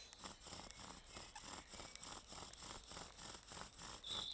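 Bow drill being worked to make a friction fire: the wooden spindle rubbing in its hearth board with each stroke of a shoelace-strung bow, a steady, rapid rhythmic rasping. A short bird chirp near the end.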